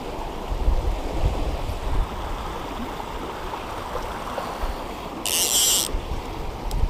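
Creek water rushing steadily over the rocks of a kayak chute, with an uneven low rumble of wind on the microphone. A brief high hiss sounds a little over five seconds in.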